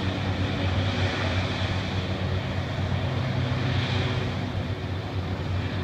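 Hovercraft's engines and air propellers running in a steady drone, with a low hum that lifts slightly in pitch about midway.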